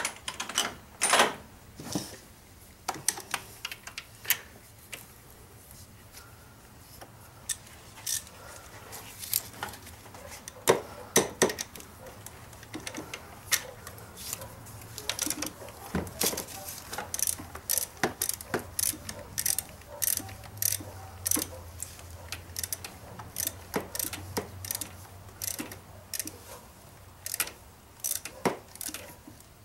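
Ratchet wrench clicking in short irregular runs, with light metal clinks, as the alternator's mounting bolts are threaded in and tightened down. The clicking comes in quicker, denser runs in the second half.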